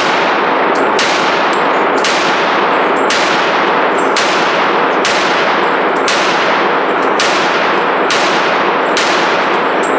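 Pistol shots at an indoor range, roughly one a second, each a sharp crack whose echo runs into the next, so loud that the recording is saturated into a continuous din.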